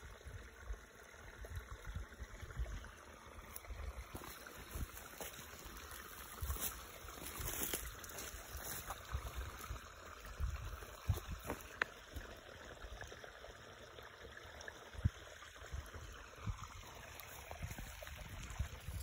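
A creek running, heard faintly, with wind rumbling on the microphone in uneven gusts and a few faint clicks.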